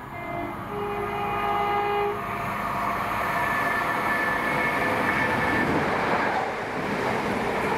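Chiltern Railways diesel multiple unit sounding its horn for about two seconds as it approaches, then coming past close by, the noise of its engines and wheels on the rails building up.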